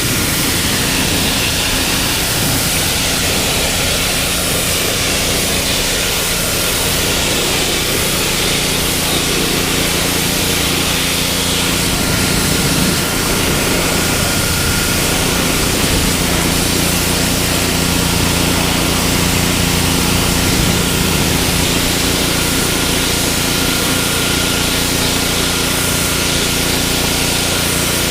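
A power tool's motor running continuously, a steady hum under a loud hiss, as used in prepping deck boards.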